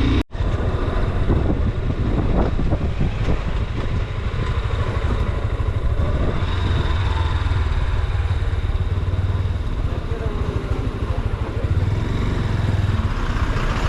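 Motorcycle engine running steadily while riding, a constant low rumble. The audio drops out for a split second just after the start.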